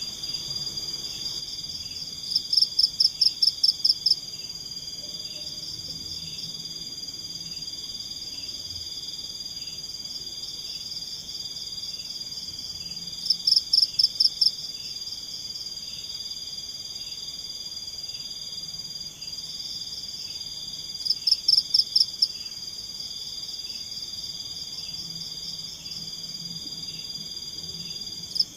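Tropical forest night chorus: a steady high drone of crickets and other insects. About every eight seconds a louder burst of seven or eight quick, high chirps stands out from a calling animal.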